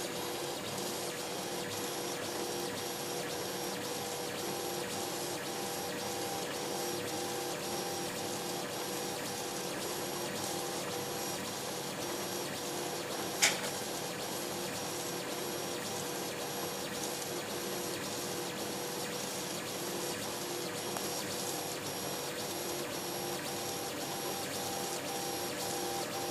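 dApA 1 3D printer printing PLA: its stepper motors whine with a steady tone and short tones that switch on and off as the print head moves. About halfway through there is a single sharp click.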